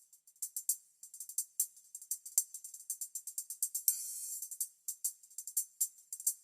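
Sound-system test playback of high percussion heard with only its treble, nothing below the upper range: quick, crisp tambourine-like jingles and ticks in an uneven rhythm, with a longer hissing cymbal-like wash about four seconds in.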